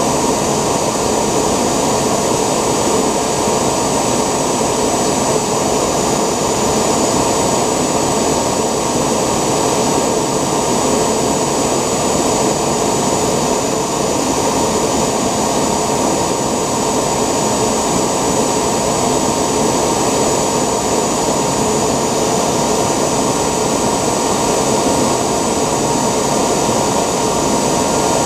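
Homemade 3D-printed gas turbine jet engine running at a constant speed: a loud, even rush with a steady high whine that holds its pitch throughout.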